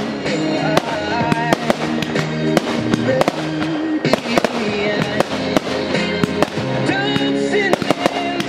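Aerial fireworks bursting and crackling, with many sharp bangs in quick succession, heard together with a music track.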